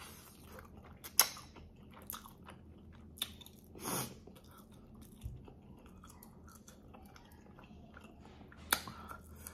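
Close-miked chewing of chicken: soft wet chewing with a few sharp crunches and clicks, the loudest about a second in and near the end.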